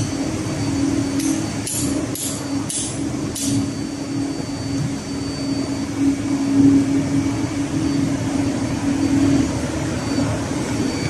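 Steady hum of running machinery, with a quick series of about five light metallic clinks between about one and three and a half seconds in as the steel parts of a HiMSEN fuel pump are handled and fitted together.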